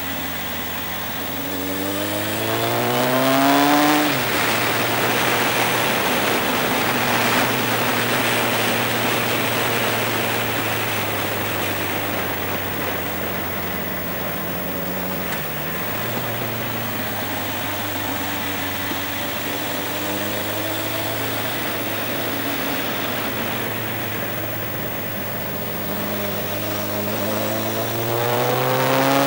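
Motorcycle engine under way on the road. The revs climb for about two seconds and drop sharply at a gear change, then hold steady with a brief dip about halfway through, and climb again near the end, over a steady rush of wind and road noise.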